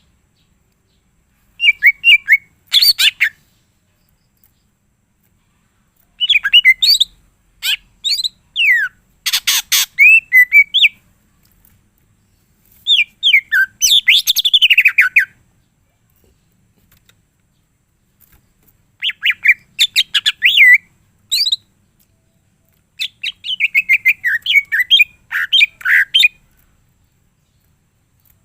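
Green leafbird (cucak ijo) singing: five loud bouts of rapid, varied chirps, whistled slides and trills, each a second and a half to three and a half seconds long, with short silences between them.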